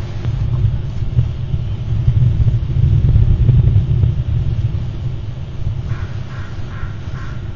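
Steady low rumble, with a crow cawing four times in quick succession near the end.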